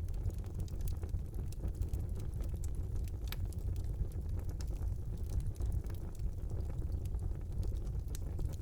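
Wood fire burning in a fireplace: a steady low rumble of the flames with frequent small crackles and pops, one sharper crack a little over three seconds in.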